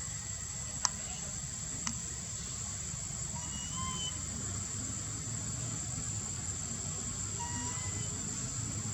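A steady high-pitched insect drone over a low rumble, with two sharp clicks about one and two seconds in and a few faint short chirps.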